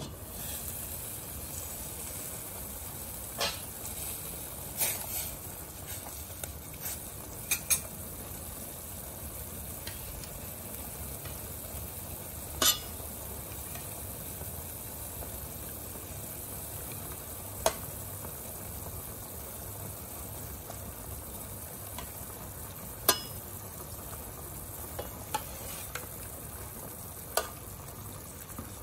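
Pot of fish soup with pickled mustard greens boiling hard: a steady bubbling hiss, broken about seven times by sharp clinks of metal against the pot.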